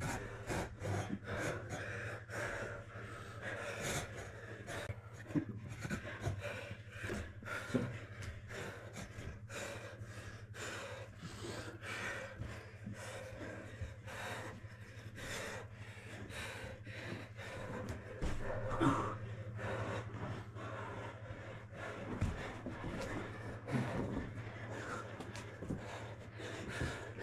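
People grappling: hard breathing and panting, with frequent short thuds and scuffs of bodies on a mat, over a steady low hum.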